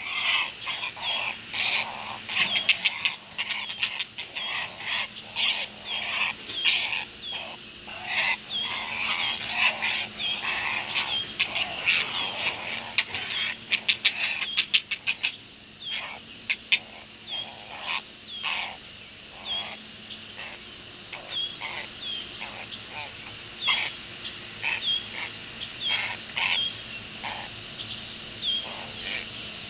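Great blue heron nestlings giving harsh, repeated begging calls, several short notes a second, during feeding at the nest. A quick run of clacks comes about halfway through, and the calls thin out toward the end.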